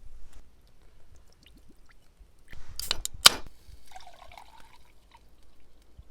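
Dishes and utensils being handled during a meal. Scattered light ticks lead up to a cluster of sharp clinks about three seconds in, and a brief liquid sound follows.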